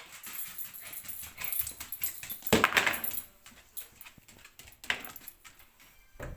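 Shih Tzu whimpering and giving short yips, mixed with small knocks and scrapes. The loudest outburst comes a little over two and a half seconds in.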